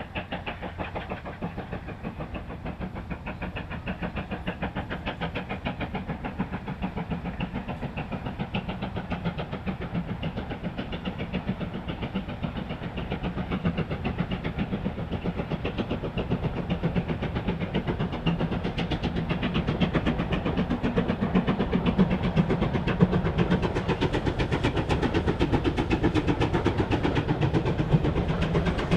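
Steam locomotive working at speed, its exhaust beats coming fast and even and growing louder as it draws nearer.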